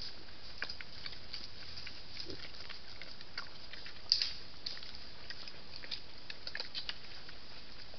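Wild boar rooting in leaf litter: scattered small ticks and rustles of leaves and twigs, with a low grunt about two seconds in and a sharper click about four seconds in, over the trail camera's steady hiss.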